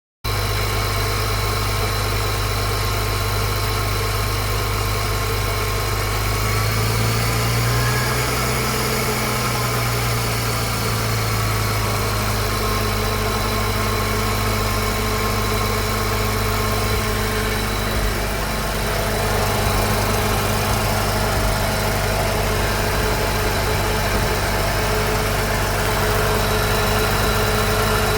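An engine idling steadily, its pitch lifting slightly and settling back a few seconds in.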